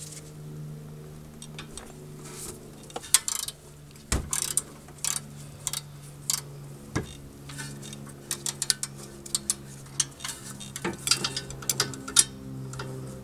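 Long-handled ratchet clicking in short quick runs as it loosens the tight caliper support bracket bolts, with scattered metallic clinks and one dull knock about four seconds in.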